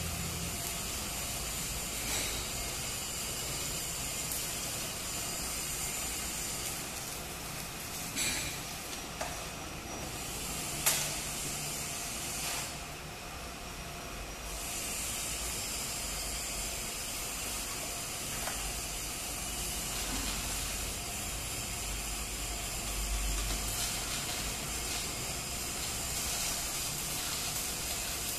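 Stick-welding arc from a small inverter welder, crackling and hissing steadily as a rod burns along an upright test plate. Near the middle the arc goes out for about two seconds, then is struck again. A sharp click is heard just before the break.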